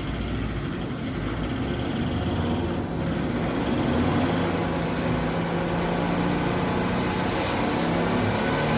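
Volkswagen Polo 1.6 TDI four-cylinder diesel engine running, getting louder about three seconds in and then holding a steady note.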